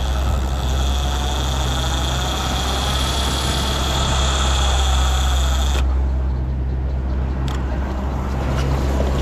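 A boat's motor running steadily at trolling speed under wind and water rush. The high hiss cuts off suddenly about six seconds in while the low engine hum carries on.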